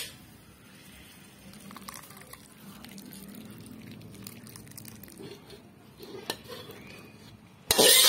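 A metal spoon clinks once against a metal wok, then a quiet stretch while sauce is poured from the wok; near the end the spoon scrapes loudly across the wok, pushing the last of the sauce out onto a plate.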